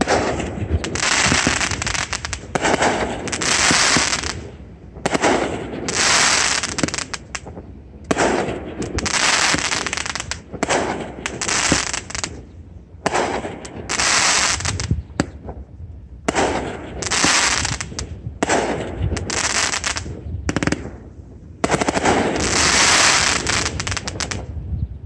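Aerial fireworks shells bursting one after another, about a dozen in all, each burst followed by roughly a second of dense crackling from the stars.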